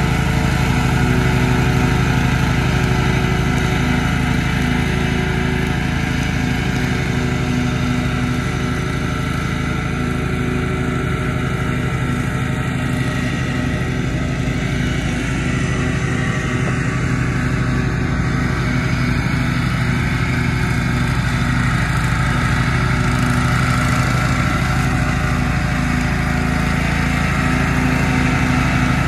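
Riding lawn mower's engine running steadily under mowing load, a constant even drone.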